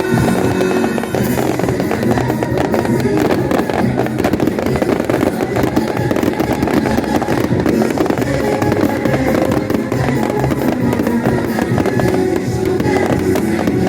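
Fireworks finale: a dense, continuous barrage of bangs and crackles over loud accompanying music.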